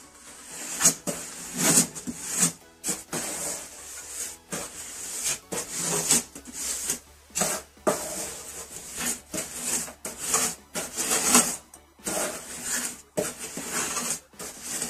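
Irregular scraping and rubbing strokes, one or two a second, as of hand work against a hard surface.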